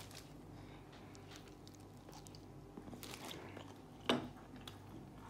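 A person biting and chewing a mouthful of food at close range, quietly, with small crunching clicks and one brief louder knock about four seconds in.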